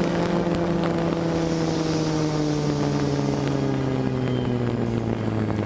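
A radio-controlled airplane's motor running steadily, heard from on board, its pitch slowly sinking toward the end as the throttle eases off.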